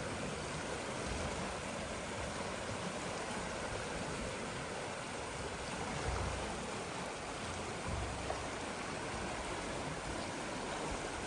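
Steady rush of running creek water, with a few brief low thumps.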